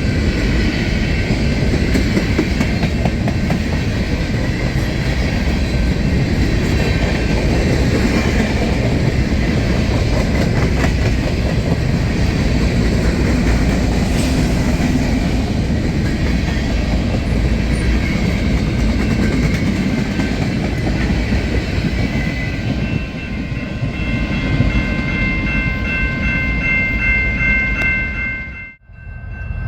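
Train rolling past close by, a continuous rumble of wheels on rail with some clickety-clack. In the last several seconds, a few steady high-pitched tones ring over the rumble.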